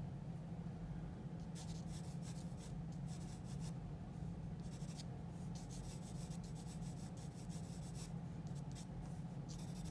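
Graphite pencil on drawing paper, lightly filling in shading in several short runs of strokes with brief pauses between, over a steady low hum.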